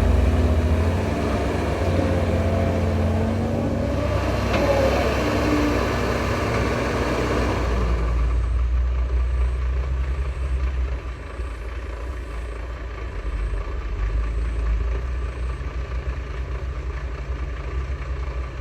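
Heavy machinery engine running with a deep, steady rumble. About eight seconds in, the sound changes abruptly to a duller, quieter engine sound.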